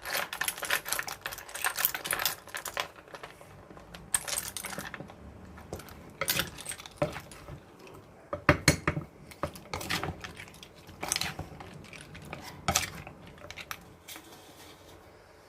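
Irregular clinking and knocking of a spoon and pestle against a mortar as som tam is mixed, with clusters of rapid clatters and single sharp knocks.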